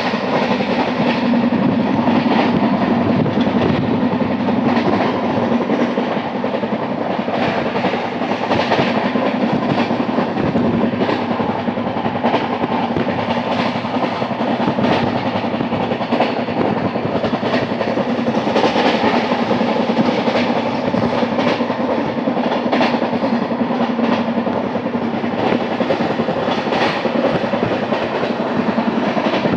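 LHB passenger coach running at high speed: steady rumble and clatter of steel wheels on the rails, with the repeated knock of a flat wheel, a wheel whose tread has worn a flat spot. Heard from the coach's open door.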